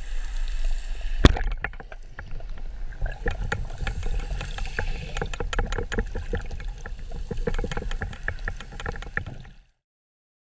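Underwater, a Cressi Comanche 90 band speargun fires with one sharp, loud crack about a second in, over a low, steady underwater rumble. A run of irregular clicks and knocks follows, and the sound cuts off abruptly near the end.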